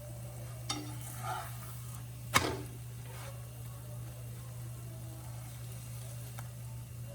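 Dough pie frying in a pan, sizzling gently over a steady low hum. There is a light click about a second in and a single sharp clack about two and a half seconds in.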